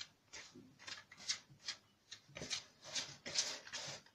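Hands rubbing flour together with oil and butter in a plastic bowl: soft rustling swishes, two or three a second, as the fat is worked into the flour for a rusk dough.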